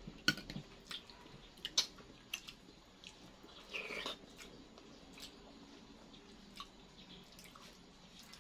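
Faint eating sounds: chewing with scattered soft clicks and taps, and a short, louder noise about four seconds in.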